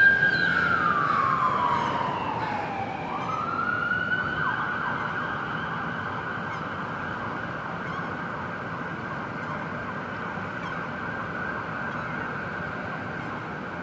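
Emergency vehicle siren wailing: its pitch falls over about three seconds, rises again and then holds a long steady high note, growing gradually fainter.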